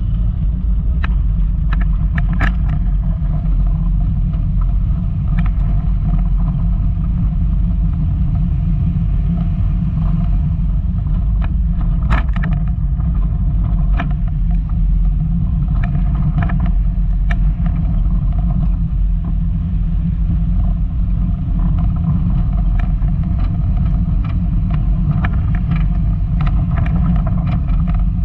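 Volkswagen Golf Mk2 driving over rough off-road ground: a steady low rumble of engine and tyres, with scattered sharp knocks and rattles.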